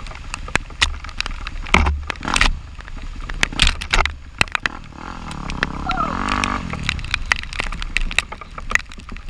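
Off-road vehicle riding, with many sharp knocks and crackles throughout over a noisy rumble, and the engine revving up and back down once about six seconds in.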